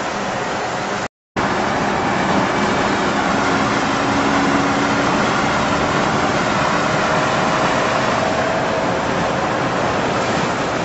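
Steady road and traffic noise heard from inside a moving car at highway speed, with a faint engine hum, broken by a brief dropout about a second in.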